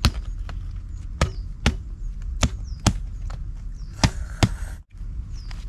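A grilled bird being struck against the top of a wooden stump to break it up: sharp, dull knocks, about seven, mostly in quick pairs.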